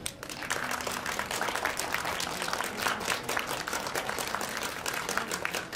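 Audience applauding: many hands clapping at once, starting suddenly and keeping up steadily.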